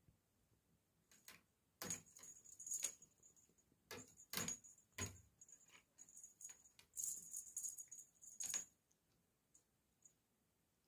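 Feather cat-teaser wand (a 'fishing-rod' cat toy) hanging from a wardrobe door handle, rattling and tapping against the door as a cat paws and bites its lure. It makes an irregular run of light clicks and rattles in bunches from about a second in until near the end.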